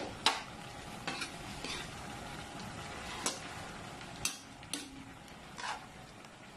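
A spatula stirring and scraping dried anchovies and vegetables around a wok, giving irregular knocks and scrapes against the pan over a steady frying sizzle.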